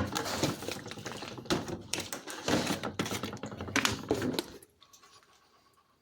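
Bleach being rubbed onto a washing machine's rubber door seal: rapid scuffing and clicking handling noise that stops about four and a half seconds in.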